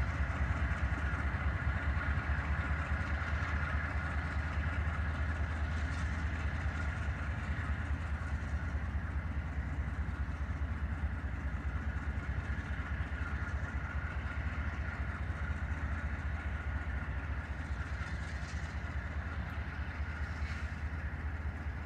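Diesel freight locomotive shoving a rail train, its engine working with a steady low rumble that slowly fades as it moves away.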